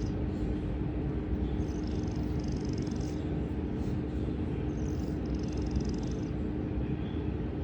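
A sleeping cat snoring: a raspy snore on each breath, about every three and a half seconds, over a steady low hum.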